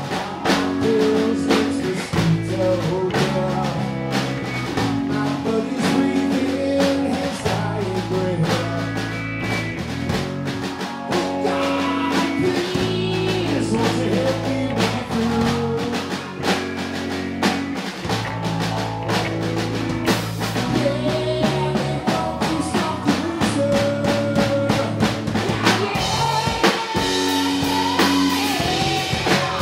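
A live rock band playing: a man singing over electric guitar, electric bass guitar and a drum kit.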